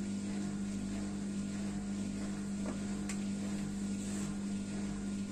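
Beko dishwasher's drain pump running with a steady hum, pumping out any water left inside at the start of a wash cycle.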